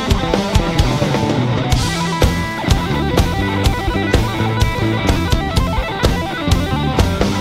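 Rock band music: a drum kit keeping a steady beat with cymbals, under electric guitar.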